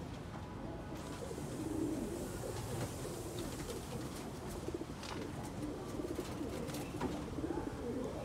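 Pigeons cooing, low and wavering, with a few short clicks around the middle.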